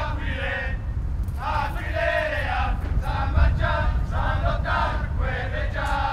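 A group of male soldiers chanting in unison in short phrases as they march, over a low rumble.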